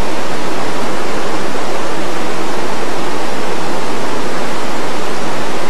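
Loud, steady rush of fast-flowing river water, close to the microphone.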